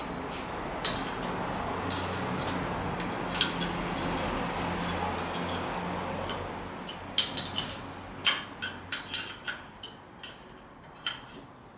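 Homemade belt grinder's electric motor running with a steady hum, then winding down from about six seconds in. A run of sharp metallic clinks follows.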